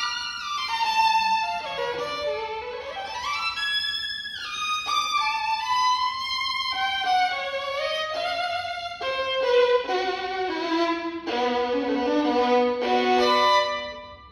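Solo violin made by László Nemessányi in 2024 (No 346, op. 59), played unaccompanied: a quick run of notes sweeping down and back up, then phrases that settle onto lower notes before stopping shortly before the end.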